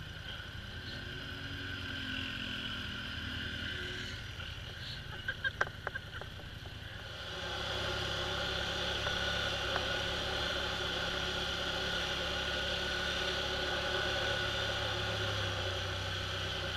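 ATV engine running steadily while riding, with a few sharp knocks about five and a half seconds in. The engine sound steps up louder about seven seconds in.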